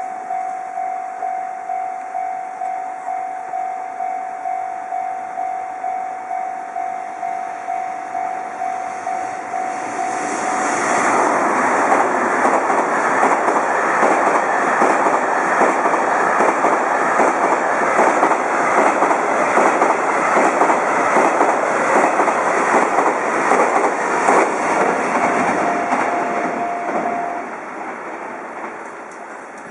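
A Japanese level-crossing warning bell rings in a steady repeating ding, just under two a second. About ten seconds in, the JR Freight M250-series electric freight train passes at speed, its wheels clattering rapidly over the rail joints and drowning out the bell. The train noise fades near the end, and the bell stops shortly before it does.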